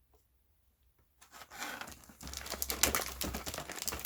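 Crinkly packaging, such as booster-pack foil wrappers and the plastic box insert, handled and rustled, with many small crackles and clicks. It starts about a second in after a near-silent moment.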